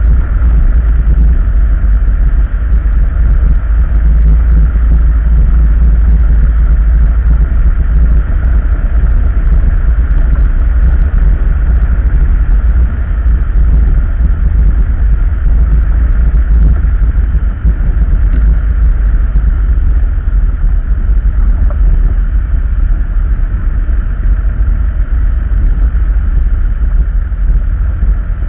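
A vehicle's engine running steadily while it drives slowly over a gravel road, loud with a deep steady rumble.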